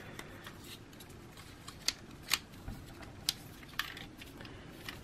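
Plastic parts of a Fansproject Revolver Core toy and its add-on armour clicking and rubbing as they are pressed and pushed together by hand: a few small sharp clicks spread irregularly over faint handling noise.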